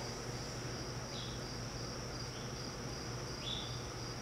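Steady high-pitched chirring like insects, over a low steady hum, with a few faint short high chirps about a second in and again past two and three seconds.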